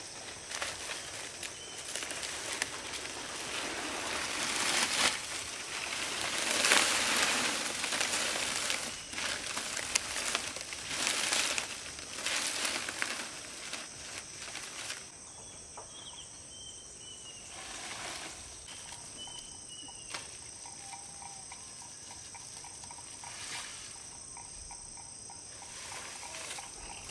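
Rural outdoor ambience: a steady high insect drone, with rustling noises through the first half and a few short bird chirps after the middle.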